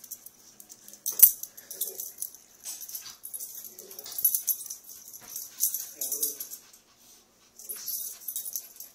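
Two dogs play-wrestling, with irregular hissy, breathy bursts and a few soft low grunts, and one sharp click about a second in.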